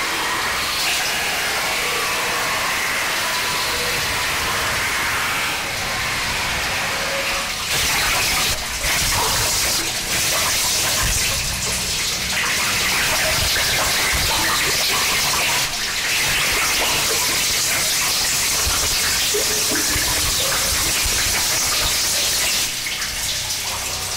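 Harsh noise music: a dense, unbroken wall of static-like hiss at a steady loud level. Its texture shifts abruptly several times, with more low rumble coming in about eight seconds in.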